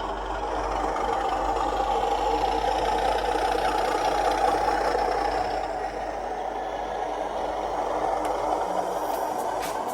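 Class 31 diesel engine sound played by a model locomotive's DCC sound decoder through small upgraded speakers: a steady engine running note that builds over the first few seconds, eases about six seconds in, then builds again.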